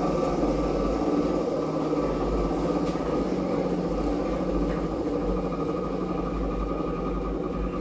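Large coin-operated laundromat washing machine running, a steady mechanical hum with a low rumble.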